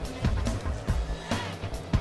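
Background music with a beat and a heavy bass line.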